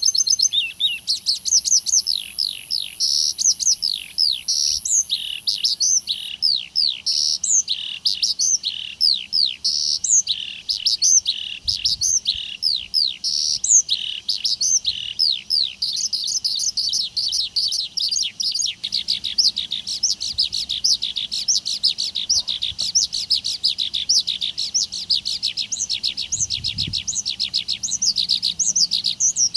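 Small birds chirping in a dense, continuous chorus of quick, short down-sweeping chirps, with a steady high trill over it for the first several seconds.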